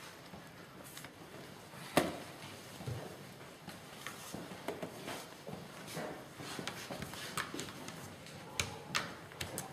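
Draughts pieces being set down on boards and game-clock buttons pressed: scattered sharp clicks and taps, with one loud knock about two seconds in and a few more near the end, over a faint hall background.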